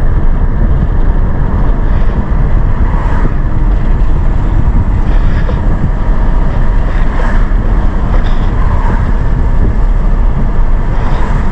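Steady road and engine rumble inside a moving car's cabin, heaviest in the low end.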